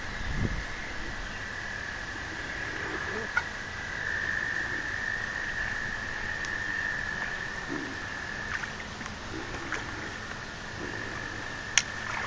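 Frogs or toads calling steadily from the water in one continuous high trill. A few faint clicks stand out over it, the sharpest about three seconds in and near the end.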